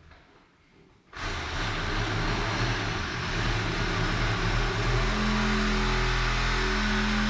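An engine starting about a second in, running unevenly at first, then settling into a steady run from about five seconds in.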